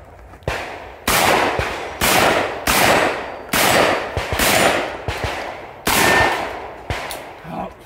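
Semi-automatic AK-pattern gun firing single shots at a steady pace, roughly one a second, each shot followed by a long echoing tail.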